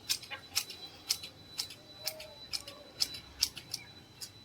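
Hand hedge shears snipping a hedge, a sharp click with each cut, about two cuts a second.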